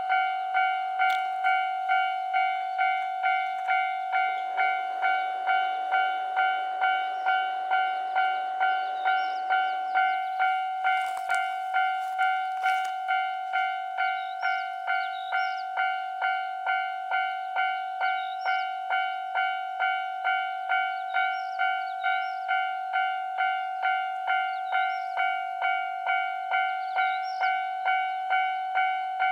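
Japanese railway level-crossing warning bell ringing steadily, an electronic ding at about two strikes a second: the crossing is closed for an approaching train. A low rushing noise swells and fades between about 4 and 10 seconds in.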